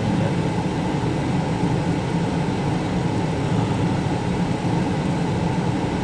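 Car engine idling, heard from inside the cabin as a steady low rumble.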